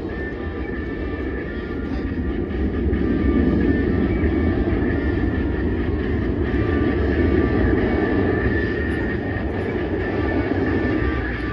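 Jet aircraft engine noise: a steady low rumble with a faint high whine, growing louder about three seconds in as the jet approaches.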